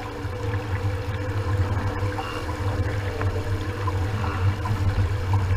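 Water rushing and splashing along the hull of a VX One sportboat under sail, over a steady low rumble.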